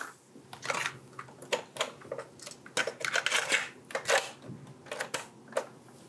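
Plastic clicks and clatter of cassette tapes being handled and loaded into a portable cassette boombox, its deck door and buttons snapping, in a quick irregular series.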